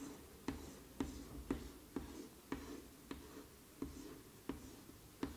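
Chalk on a blackboard drawing small cell outlines: a short tap or scrape with each stroke, about every half second, faint and even.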